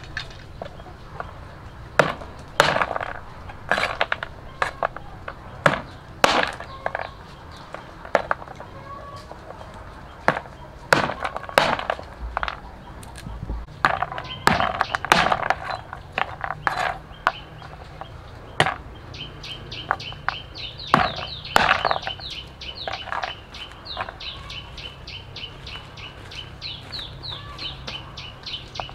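A cleaver chopping on a wooden board in irregular sharp knocks. From about halfway on, a bird gives fast runs of short, high chirps.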